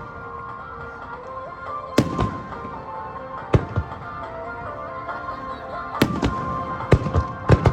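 Aerial firework shells bursting: five sharp bangs a second or two apart, the last three coming quickly together near the end. A song plays underneath.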